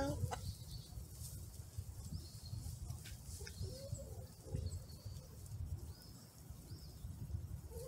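A hen being held for a feather check gives a short, soft low call about four seconds in, with a few faint high bird chirps and a steady low rumble underneath.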